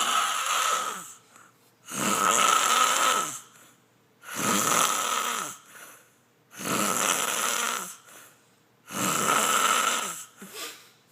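A chicken snoring in its sleep: five drawn-out snore breaths about a second long each, repeating roughly every two seconds with quiet between them.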